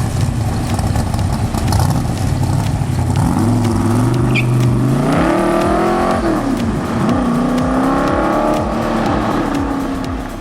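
Car engine revving: a low rumble at first, then climbing in pitch about three and a half seconds in, dropping back a little after the middle and rising again before easing off near the end.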